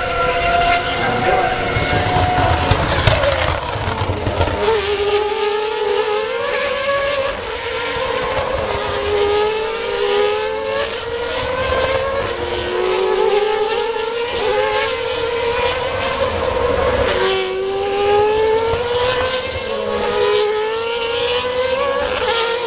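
Open-wheel race car engines at high revs, a steady note at first, then about five seconds in climbing in pitch and dropping back again and again as the cars accelerate up through the gears.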